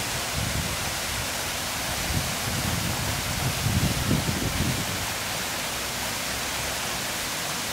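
Waterfall: water pouring down a rock face, a steady rushing hiss, with an uneven low rumble in the middle.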